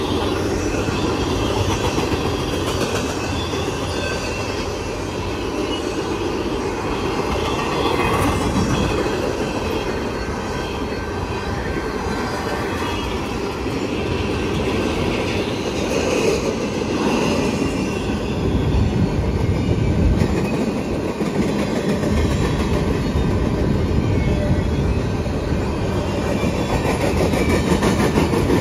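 Freight train of empty double-stack well cars rolling past, with steady wheel-on-rail noise, clickety-clack over the rail joints and some thin wheel squeal.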